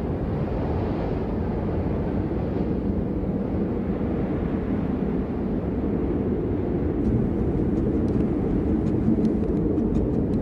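Steady low rumbling ambience noise with no music, with a scattering of faint clicks in the last few seconds.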